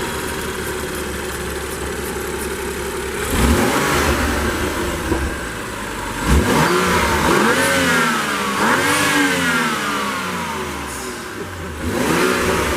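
BMW M235i's turbocharged 3.0-litre straight-six (N55), heard close at the intake airbox, idling steadily and then free-revved several times. The pitch climbs and falls back with each blip, the first a few seconds in.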